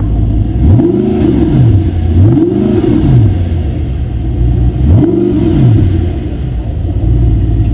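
Audi R8 engine through a Capristo aftermarket exhaust, revved three times at a standstill. Each rev rises and falls in pitch over about a second, and the engine settles back to idle between the revs.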